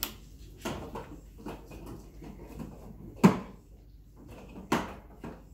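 Small plastic electronic cat toy knocking and clattering on a hardwood floor as a cat bats at it: about five sharp knocks, the loudest a little past three seconds in.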